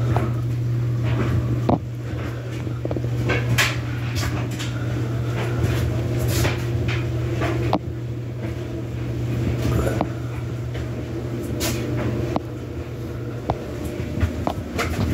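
Steady low hum that drops away sharply about halfway through, with scattered clicks and knocks throughout.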